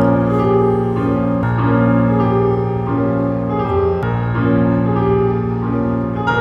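Slow piano music playing held chords that change about every second.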